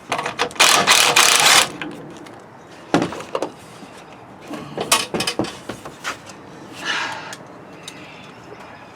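Knocks, clicks and scraping of hands and tools working on a lawnmower wheel to free it for greasing, with a harsh, noisy scrape for about a second near the start.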